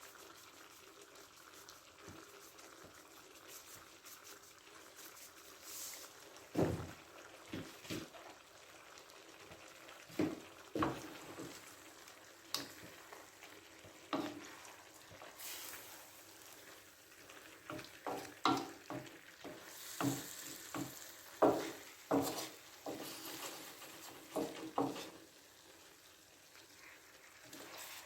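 Chicken and vegetable stir-fry frying in a pan, with a spatula stirring and knocking against the pan in irregular strokes that come more often in the second half.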